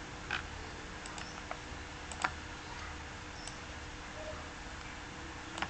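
A handful of isolated computer mouse clicks, a second or more apart, over a faint steady hum.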